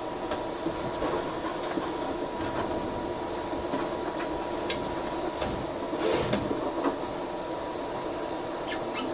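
Steady hum of a Geeetech A20 3D printer's cooling fans with the steppers switched off, under scattered small clicks and rustles of hands working on the printer. A brief louder rustle and scrape comes about six seconds in.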